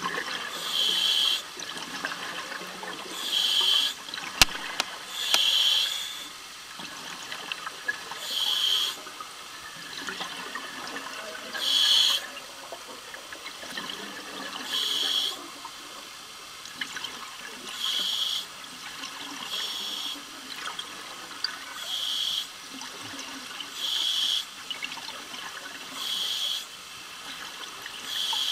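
Scuba diver breathing through a regulator underwater: bursts of exhaled bubbles every two to three seconds, with a quieter hiss between breaths. There is a single sharp click about four and a half seconds in.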